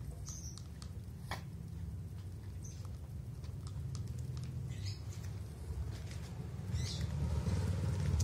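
Two street kittens eating dry kibble from a bowl: small crunching clicks and a few short high squeaks over a steady low hum. Rustling from about seven seconds in.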